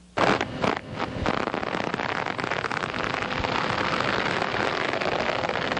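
Dense crackling hiss, like rain or static, that starts abruptly with a few sharp cracks and then runs on evenly.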